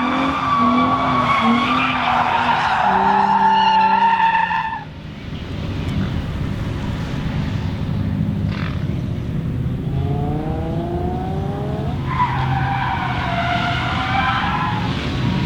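Tyres squealing in long wavering screeches over a running engine as a Nissan G35 with a welded rear differential is driven in slides. The squeal stops about five seconds in, the engine revs up around ten seconds, and the tyres squeal again from about twelve seconds.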